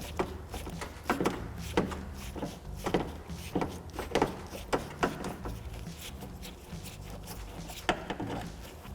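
Hand Phillips screwdriver turning out the screws that hold a car door latch: a run of irregular metal clicks and scrapes, about two a second at first, then a few more near the end.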